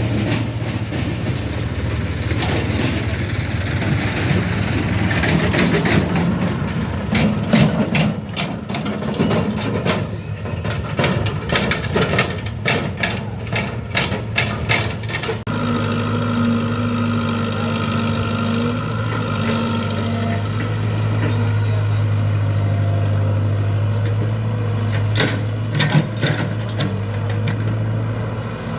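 Heavy diesel machinery running at a steady pace, with a stretch of rapid metallic clanks and knocks in the middle and a couple more near the end.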